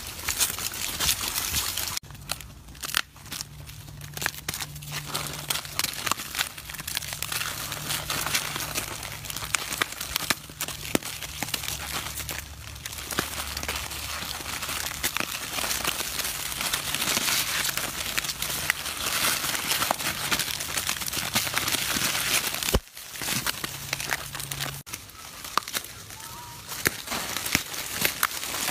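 Crinkling and rustling of plastic snack-cake wrappers as a troop of macaques grabs and handles them, with many small crackles and clicks.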